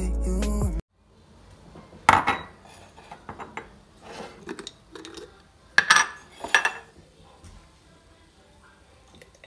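Background music cuts off about a second in. Then kitchenware clinks and knocks as a glass jar of ground coffee, its lid and a stainless steel coffee pot are handled on the countertop, with a sharp clink about two seconds in and a cluster of three clinks past the middle.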